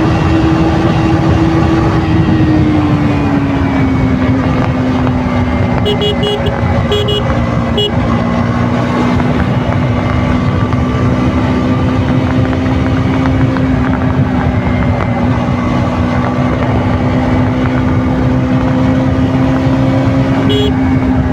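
KTM RC 200's single-cylinder engine through its stock exhaust, running steadily while the bike cruises; the note eases slightly lower about three seconds in and then holds. A few short horn beeps sound about six to eight seconds in, and once more near the end.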